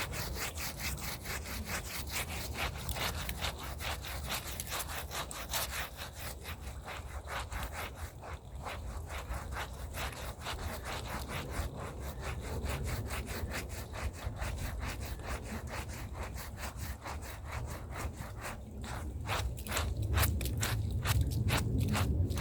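Hand brush scrubbing a rug with rapid, rhythmic back-and-forth strokes, bristles scraping over the pile.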